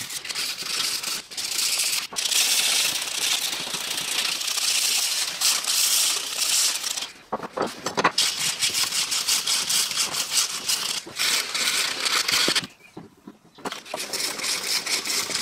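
Sandpaper being rubbed by hand back and forth over an old knife's wooden handle, a steady scratchy hiss that pauses for about a second near the end.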